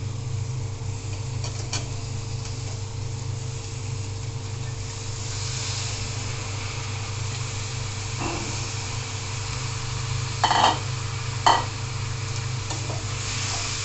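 Sliced spiny gourd (kakrol) tipped from a bowl into a steel wok of hot oil and spices. A frying sizzle grows from about five seconds in. A few sharp knocks on the wok come through, the loudest two about ten and eleven seconds in, over a steady low hum.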